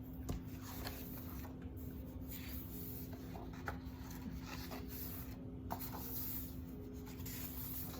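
Paper rustling and light taps of a picture book being handled and its pages turned, over a steady low hum.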